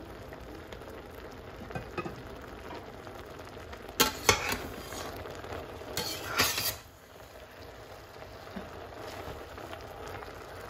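A metal utensil stirring wilted spinach in a stainless steel saucepan, with sharp metal clatters against the pan about four and six seconds in, over the steady hiss of the steaming, simmering pot.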